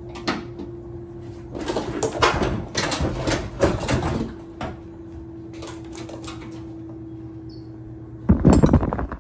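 Plastic tub assembly of a washing machine being handled and worked out of its metal cabinet: a series of knocks and scrapes in the first half, and a louder clatter near the end.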